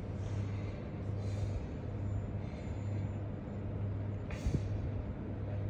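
A steady low hum in the room, with soft breaths close to the phone's microphone and a single light knock about four and a half seconds in.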